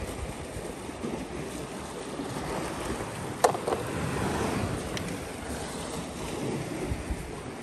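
Sea waves washing against rocks, with wind on the microphone. About halfway through, one sharp knock as a hollow plastic toy tow truck is set down on the rock, and a fainter click follows a little later.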